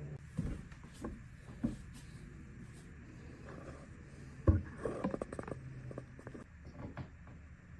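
Scattered knocks and rustling of someone moving about and handling tools, with a sharp thump about four and a half seconds in, followed by a brief flurry of rustling and clatter. No drill is running.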